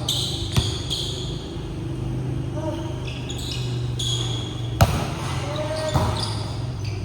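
Basketball bouncing on a gym floor during a game: a few sharp thuds that ring in a large hall, with voices of players in the background.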